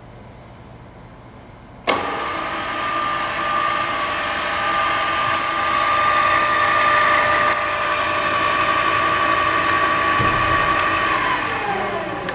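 Ikeda RM1300 radial arm drill's electric motor and gearbox switched on, starting suddenly and running with a steady gear whine and a light tick about once a second. Near the end it is switched off and the whine falls away as it winds down.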